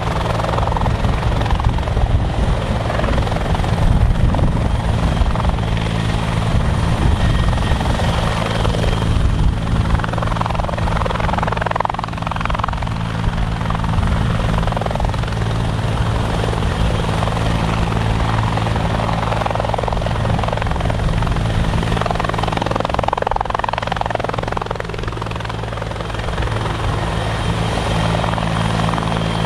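Bell 412 twin-turbine helicopter hovering low and steady while its belly-mounted water tank is filled from a pool by suction hose. Its rotor beat and turbine whine run steadily, dipping slightly in level about 24 seconds in.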